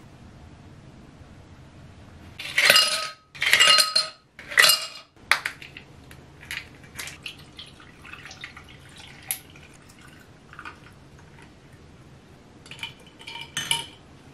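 Ice cubes tipped from a plastic container into a tall glass, clattering and ringing in three loud pours about two seconds in, followed by scattered lighter clinks. Near the end a spoon stirs the drink, clinking against the glass.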